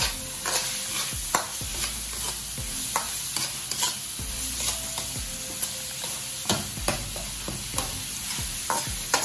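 Frozen mixed vegetables sizzling in a hot non-stick frying pan, with a spatula scraping and tapping against the pan in irregular strokes as they are stir-fried.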